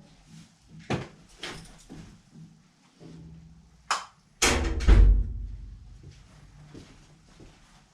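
A few sharp knocks, then a heavier thump about four and a half seconds in, with a low rumble dying away after it.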